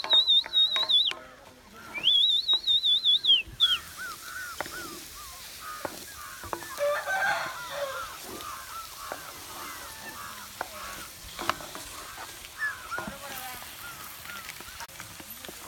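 A loud, high warbling bird call twice in the first few seconds, then puppies whimpering in a long run of short, falling whines.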